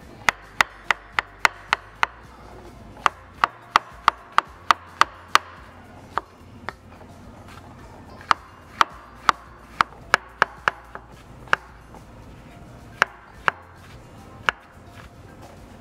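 Knife chopping on a wooden cutting board, in runs of quick, evenly spaced strokes, about three a second, with short pauses between runs.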